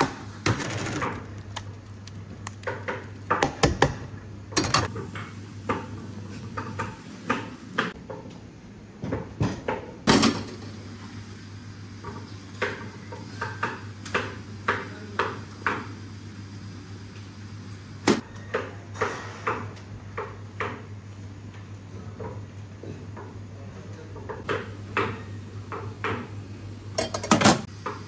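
Metal bowls and utensils clinking and knocking irregularly as dishes are handled and filled, over a steady low hum.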